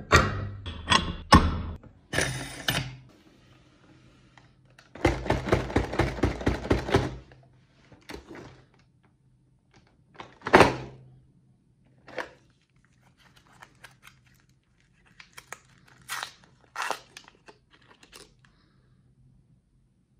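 Handling noises: knocks and clatter of a metal manual meat grinder's parts being handled, a rapid run of clicks, then a single thud and light rustling and clicking of wrapped candy cones.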